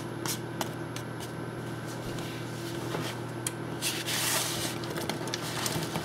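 Chopped peppers poured from a plate into a hot frying pan of melting butter and diced onions, hissing briefly about four seconds in as they land, after a few small clicks of the onions settling. A low steady hum runs underneath.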